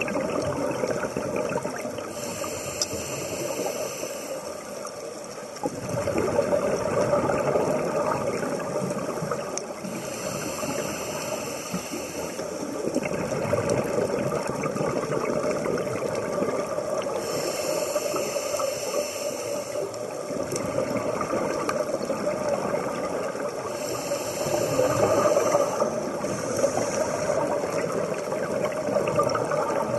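Scuba diver breathing underwater through a regulator: four hissing inhalations about seven seconds apart, each followed by a rush of exhaled bubbles.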